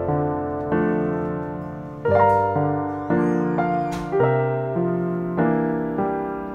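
Background music: a gentle piano piece, notes and chords struck about every half second to a second, each fading before the next.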